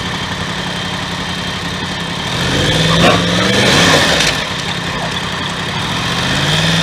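Motorcycle engine running at low speed, picked up by a camera mounted on the bike with a rush of wind noise over it; the engine note rises and falls twice as the bike pulls through the junction.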